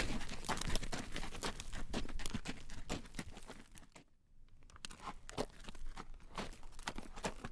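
A horse's hooves clip-clopping on a road as it pulls a carriage, a quick run of sharp clacks. The sound drops out briefly a little past halfway, then resumes.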